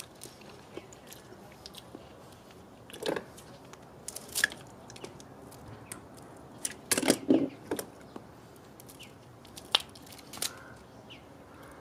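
Cooked crab leg shells cracking and snapping as they are broken by hand and cut with kitchen shears: scattered sharp crunches and clicks, the loudest cluster about seven seconds in.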